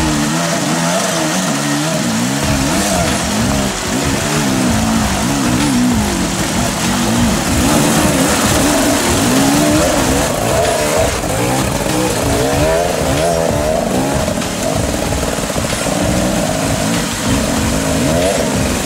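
Two-stroke enduro motorcycle engines revving up and down on and off the throttle as the bikes are ridden over rocks and boulders.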